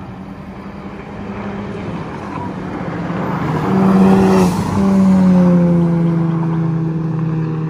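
A car drives past close by, getting louder to a peak about four and a half seconds in, then its engine note drops in pitch as it goes by and carries on down the road.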